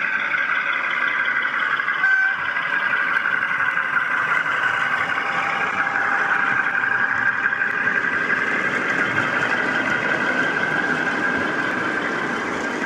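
DCC sound-fitted model diesel locomotive's engine sound playing from its onboard speaker as it hauls a rake of model wagons along the track, steady throughout, with a brief high note about two seconds in.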